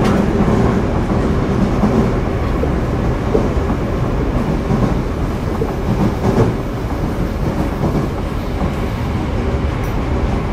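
Running sound of a Toei 5300 series subway train (set 5308F, Mitsubishi GTO-VVVF traction) under way between stations: a steady noise of wheels on rails that holds throughout.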